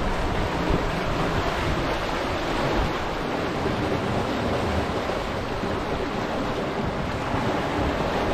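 Sailboat under way in rough seas: steady rush and splash of water foaming along the hull and in the wake, with wind.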